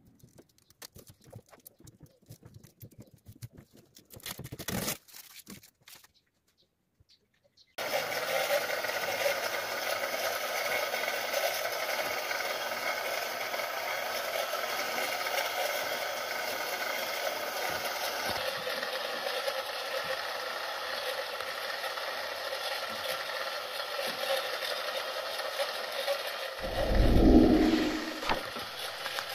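Faint clicks and rustling at first; then, about eight seconds in, a handheld heat gun starts running with a steady fan-and-air noise as it is played over window tint film on a car's rear glass. A low thump comes near the end.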